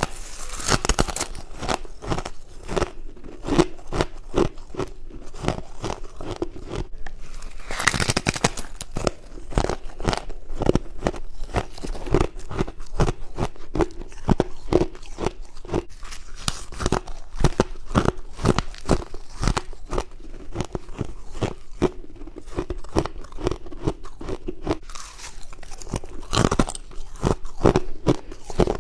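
Close-up crunching as a person chews mouthfuls of white frost, with a steady run of rapid crunches and a louder fresh bite about 8 seconds in and again near the end.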